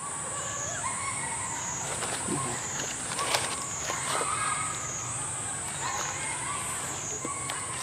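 Outdoor insect drone, a high whine that swells and fades about once a second, with short thin calls and a few sharp clicks about three seconds in.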